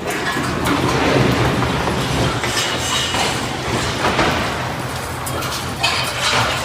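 Steady low rumbling with repeated metallic clattering and creaking on top of it.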